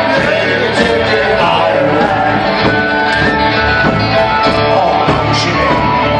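Live Irish folk band playing an upbeat tune through a PA, with fiddle, banjo, guitars, bodhrán and drum kit, under a steady drumbeat.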